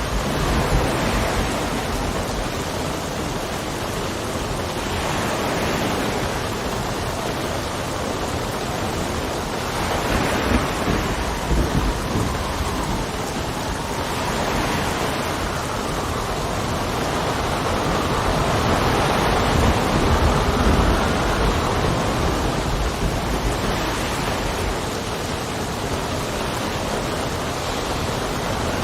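Steady rain with wind gusting, swelling and easing every four or five seconds over a continuous low rumble.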